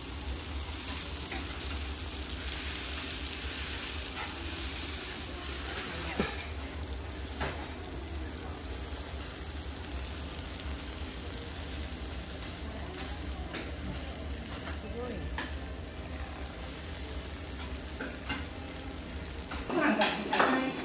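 Sechiyaki, yakisoba bound with egg, sizzling steadily on a hot iron teppan griddle, its sauce and oil bubbling around the edges, with a few faint clicks. Near the end a metal spatula scrapes and clinks on the griddle.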